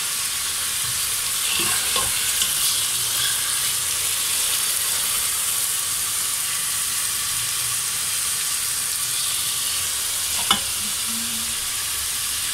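Steady sizzling hiss of the gobhi gosht frying in its separated oil in the pot on the gas stove, with a few short clicks, the sharpest about ten seconds in.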